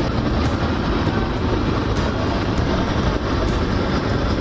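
Steady street traffic noise on a flooded road: engines running and vehicles moving through standing water.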